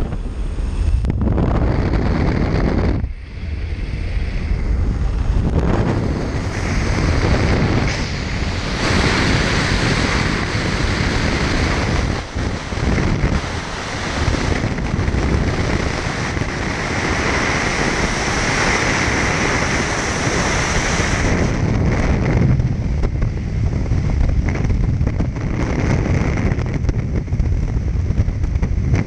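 Freefall wind rushing over the camera's microphone: a loud, continuous rush of noise that swells and dips as the camera flyer moves through the air.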